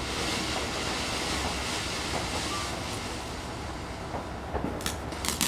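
A fountain firework burning with a steady rushing hiss, breaking into sharp crackles about five seconds in as it nears its end.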